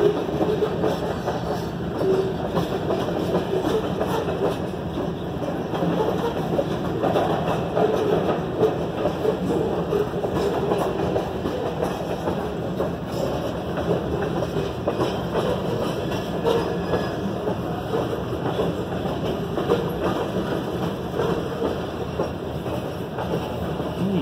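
Rochester & Southern freight train of covered hopper cars rolling steadily past a grade crossing, steel wheels running on the rails, heard from inside a car.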